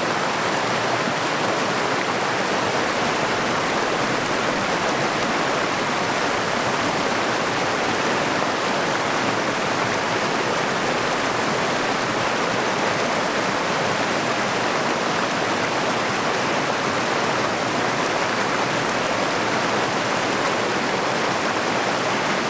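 Brook water running over riffles and rocks: a steady, even rush.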